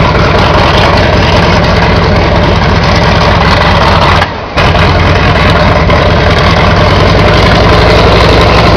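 Supermarine Spitfire's V12 piston engine idling close by, a steady low running sound that dips briefly about four seconds in.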